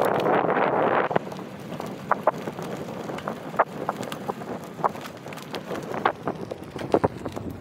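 Wind buffeting the microphone for about the first second, then a bicycle rolling over a bumpy sandy forest trail: tyre noise with scattered clicks and rattles from the bike jolting over roots and ruts.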